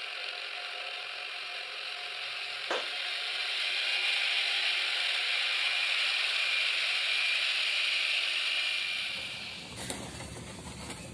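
Steady, thin, hissing and rattling machine noise from a single-drum road roller working a gravel road surface, with no deep rumble; a single click about three seconds in, and the noise fades out near the end.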